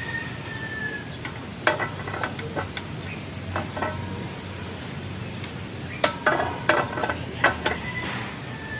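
Metallic clinks and knocks from a chrome Yutaka exhaust pipe being manoeuvred into place at the motorcycle's exhaust port, scattered taps with a short ring, busiest about six to seven and a half seconds in.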